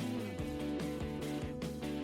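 Background music: guitar-led instrumental with held notes and a steady pulse.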